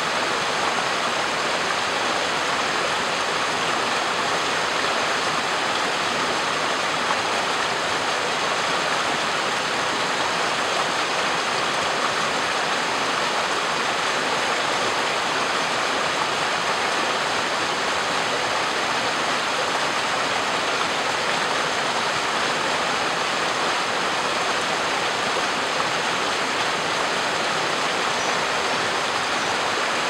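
Shallow rocky stream running, a steady, even rush of water that does not change.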